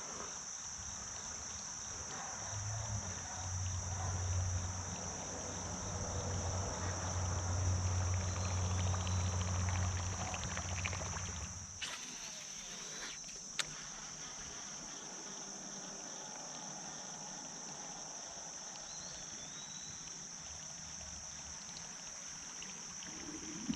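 Steady high-pitched chorus of insects droning without a break, with a low rumble from about three to twelve seconds in and a single sharp click shortly after.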